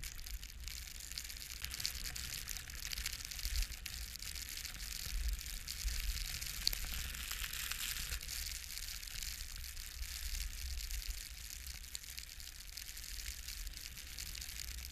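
Blizzard wind buffeting the microphone: a steady rushing hiss with an uneven low rumble.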